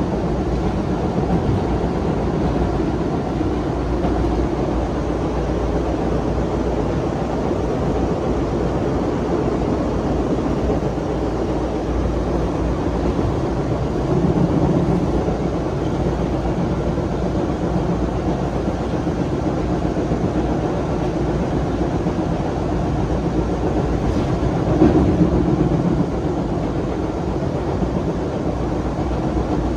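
Cabin noise inside a CRRC-built MBTA Orange Line subway car in motion: a steady rumble of the train running on the rails. It swells briefly about halfway through and again a few seconds before the end.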